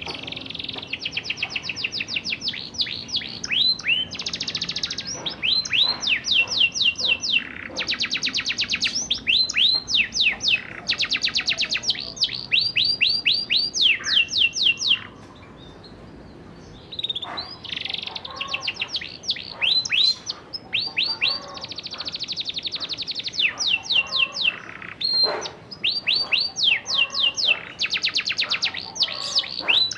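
Young domestic canary singing, still learning its song. It sings long rolling trills of rapid, evenly repeated notes, with a pause of about two seconds halfway through.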